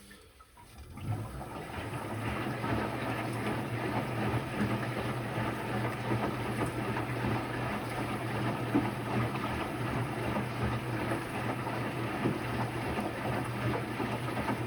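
An Electrolux Quickwash commercial washing machine's drain pump starts up about a second in and runs steadily with a low hum, pumping rinse water out of the drum.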